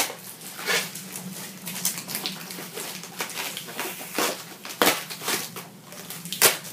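Packaging being unwrapped and a small cardboard product box handled: irregular crinkling and rustling with scattered sharp clicks and knocks, a few of them loud.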